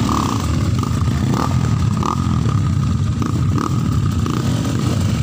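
Trail motorcycle engine labouring up a steep dirt hill climb, a steady low rumble with a few short higher bursts of revs.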